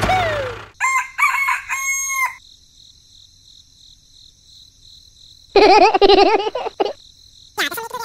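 Rooster crowing, a short high call in three parts about a second in. About five and a half seconds in comes a louder warbling call that wavers up and down in pitch, followed by a few shorter calls near the end.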